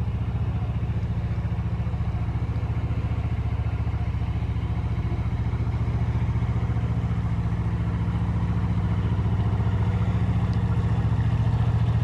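Narrowboat engine running steadily with a fast, even chugging beat as the boat motors past close by, growing a little louder as it draws level.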